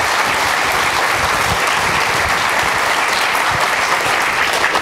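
Audience applauding steadily, a dense even clapping that holds at one level throughout.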